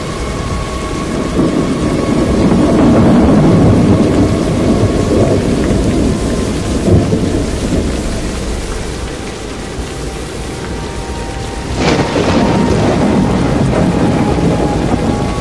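Loud rumbling roar of a tornado storm that swells about two seconds in and eases off. A sudden loud blast breaks in near twelve seconds, and the roar stays loud after it.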